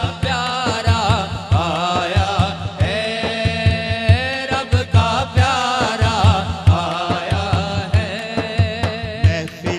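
A man singing a naat, an Urdu devotional poem, through a microphone and PA, his voice wavering in ornamented runs over a steady low thumping beat.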